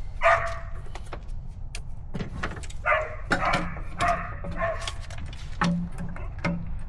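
A dog barking in short bursts, a few barks in a row around the middle, with scattered clicks and knocks of tools.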